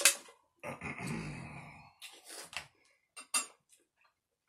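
A sharp click, then a long sighing exhale about a second in, followed by a few light clicks of a metal spoon against a bowl of rice.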